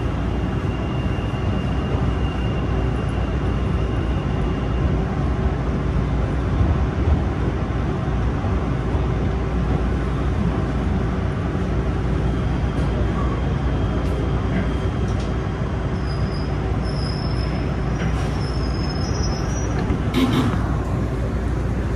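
PATH subway train rolling into its station, heard from inside the car: a steady rumble of wheels and running gear, with faint high whines in the second half and a brief sharp noise near the end.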